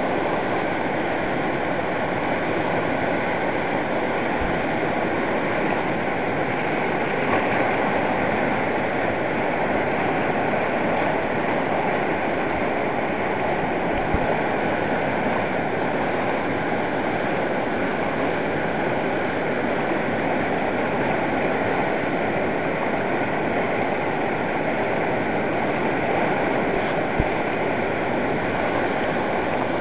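Whitewater rapid rushing steadily as a fast river pours over and around boulders.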